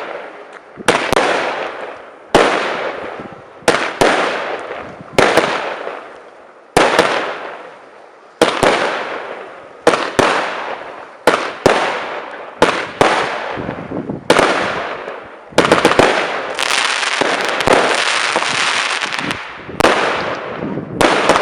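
Fireworks going off: a string of sharp bangs about every one and a half seconds, each trailing off in a fading crackle. About two thirds of the way through, a dense, continuous crackling holds for a few seconds before the single bangs resume.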